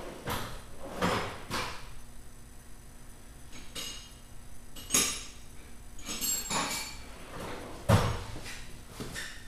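Hammer blows on a John Deere 317 garden tractor's drive shaft universal joint, driving it forward off its shaft: about eight irregular metal knocks, several with a brief ring, the heaviest about halfway through and near the end.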